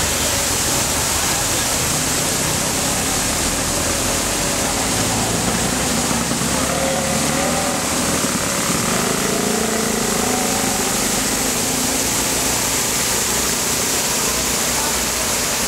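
Fountain water jets splashing, a steady rushing hiss of falling spray.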